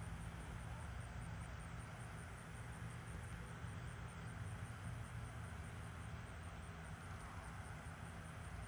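Crickets chirping in a steady rhythm, about four chirps a second, over a low steady hum.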